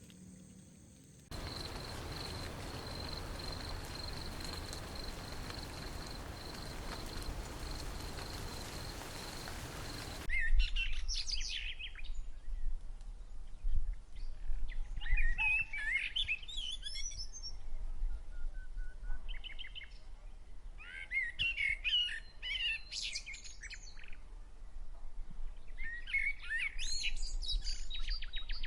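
A steady hiss with a thin high tone for about nine seconds, cutting off suddenly; then small birds singing outdoors in short, repeated twittering phrases.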